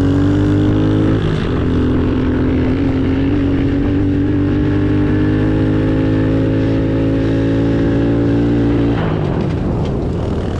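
Pit bike's small single-cylinder engine running hard under throttle, heard close up from on board. The pitch dips briefly about a second in, climbs slowly, then falls as the throttle eases about nine seconds in.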